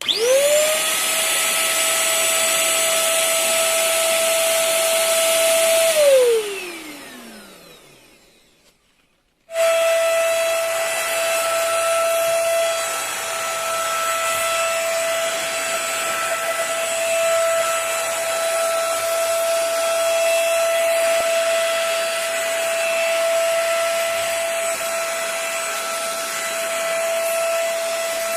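GM Bear 1024 650-watt vacuum cleaner motor switched on, its whine rising quickly to a steady high pitch. About six seconds in it is switched off and winds down with a falling whine to silence; after a short gap it is running steadily again at full speed.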